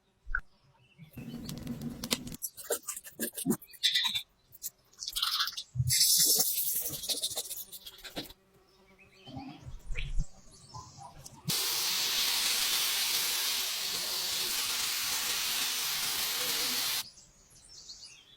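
Scattered tool clicks and knocks with short hissing bursts, then a steady spraying hiss that starts suddenly about eleven and a half seconds in and cuts off about five seconds later.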